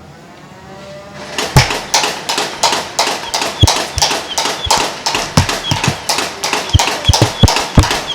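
A motorized Nerf blaster firing in rapid full-auto. It starts about a second and a half in as fast, even clacking at about five a second, with irregular dull thumps mixed in.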